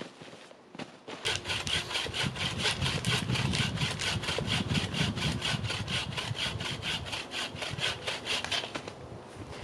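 Hand saw cutting through wood with quick back-and-forth strokes, about four or five a second, starting about a second in and stopping near the end.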